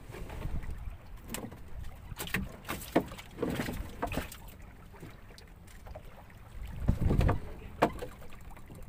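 Wind buffeting the microphone on an open boat, with scattered knocks and rattles as a net-covered iron-frame fish trap is handled and shifted on board. The wind rumble swells louder about seven seconds in.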